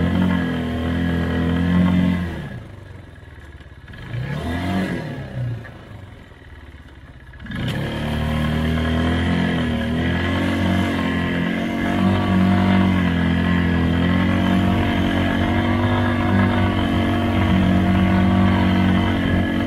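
ATV engine running close by under steady throttle. A few seconds in it eases off and drops quieter, with a brief rise and fall in pitch. From about seven seconds in it pulls steadily again.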